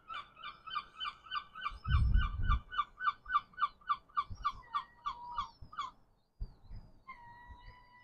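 Gull calling: a rapid series of repeated yelping notes, about four a second for nearly six seconds, followed after a short pause by a longer drawn-out call. A low thump sounds about two seconds in.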